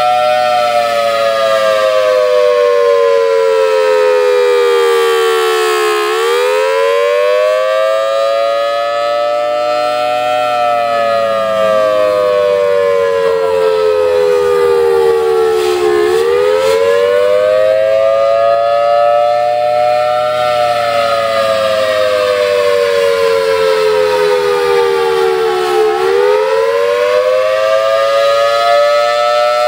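Federal Signal Thunderbolt 1000 outdoor warning siren sounding its two-tone chord, loud, its pitch sliding slowly down for about five seconds and then climbing back up, three times over. It is running with a bad blower capacitor, which the uploader says lowers its volume.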